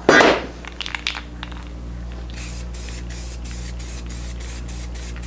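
Aerosol spray-paint can spraying black paint onto a sheet-metal saw blade guard, a high hiss in quick pulses from about two seconds in. A short, loud rustling noise comes right at the start and a few sharp ticks about a second in, over a steady low hum.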